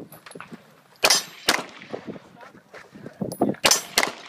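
Gunshots fired in quick pairs during a timed figure 8 shooting drill: two shots about a second in, then several more near the end. Each is followed by a metallic clang from the steel targets.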